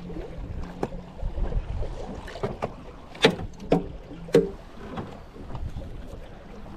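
Wind buffeting the microphone over a steady low rumble, with a handful of sharp knocks and clunks as fishing gear is handled in an aluminium boat; the loudest three come close together in the middle, the last with a short ring.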